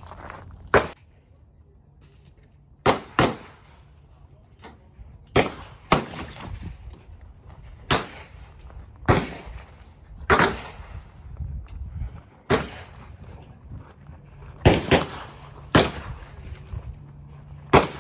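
Gunshots from shooters on a shooting range's firing line: about a dozen sharp cracks at irregular spacing, a few in quick pairs, each with a short echoing tail.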